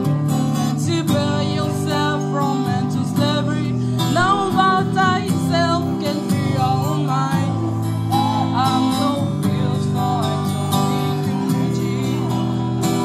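Amplified singing into handheld microphones over strummed acoustic guitar accompaniment: a slow, karaoke-style song, the sung line wavering with vibrato over steady chords.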